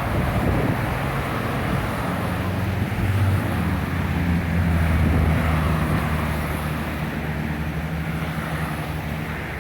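Jet airliner engines running as the plane comes in to land, a steady drone that swells about halfway through, with gusty wind buffeting the microphone.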